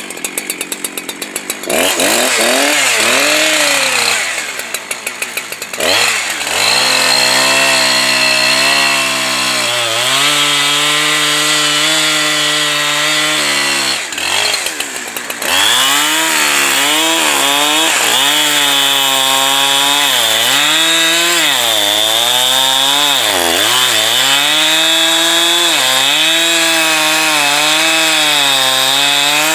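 Two-stroke chainsaw idling briefly, then run at full throttle through a cut in wood, its engine pitch sagging and recovering again and again as the chain loads up in the cut.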